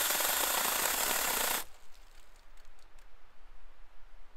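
Small battery-powered mini chainsaw running, then cutting out abruptly about one and a half seconds in, followed by faint clicks and crackles. The user suspects the saw may be overheating.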